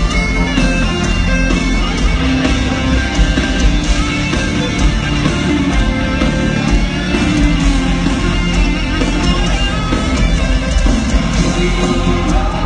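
A symphonic metal band playing live with distorted electric guitars, keyboards and drums, heard loud through a festival PA from within the crowd.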